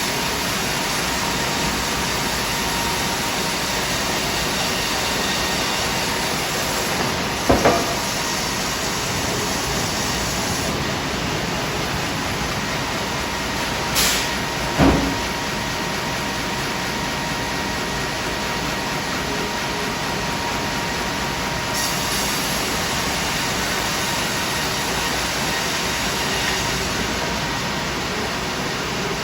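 Double-cut band sawmill running with a steady mechanical noise, broken by a sharp knock about seven seconds in and two more around the middle.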